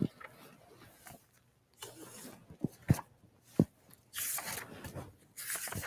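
Quiet rustling of cloth vestments and a few soft knocks as the altar party shifts position, with longer rustles near the end.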